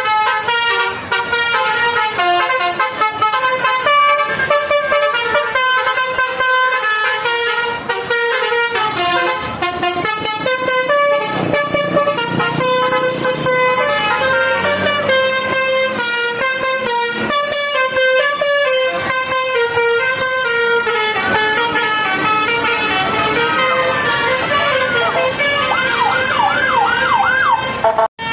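A bus's 'telolet basuri' musical horn playing a melody, one held note after another, with a few quick warbling siren-like wails near the end.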